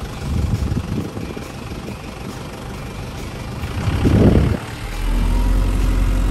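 Vehicle engine idling as a low rumble, with a brief louder noise about four seconds in that stops abruptly. From about five seconds in the rumble is steadier and louder, heard from inside the cab with a faint steady hum.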